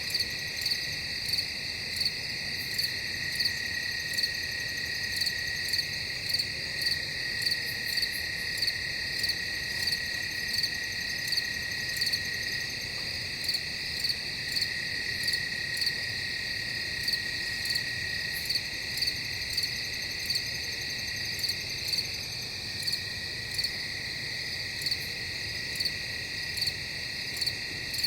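Crickets calling in a steady chorus: a continuous high trill with a louder chirp repeating about every two-thirds of a second.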